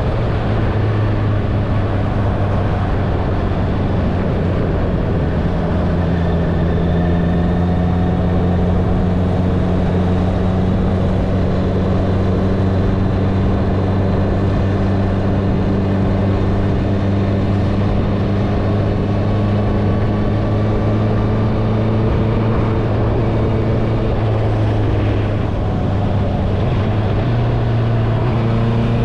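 Honda CBR650R's inline-four with an Akrapovic exhaust, cruising at steady, slowly drifting revs; the engine note steps up slightly near the end.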